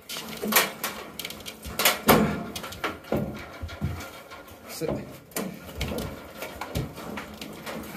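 Irregular knocks, clunks and rattles of hard objects being handled and moved in a small cupboard, a dozen or so, uneven in spacing and loudness.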